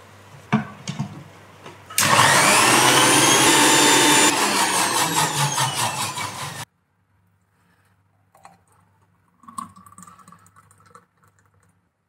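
Electric blender starting about two seconds in, whirring up to speed as it blends biscuits, ice cream and milk, running for about four and a half seconds, then cutting off abruptly. A few knocks come just before it starts.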